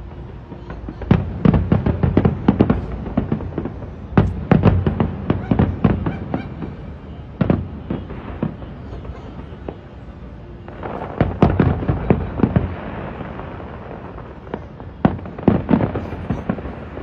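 Fireworks display: aerial shells bursting in volleys of sharp bangs, in clusters a few seconds apart. From about eleven seconds in, a steady crackle fills in under the bangs.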